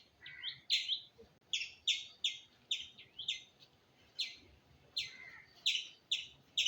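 Indian palm squirrel calling: a run of sharp, high chirps, about three a second, with a short pause a little past the middle.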